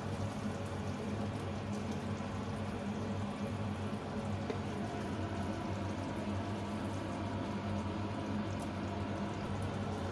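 Tomato sauce with beef balls simmering and bubbling in a frying pan, over a steady low hum.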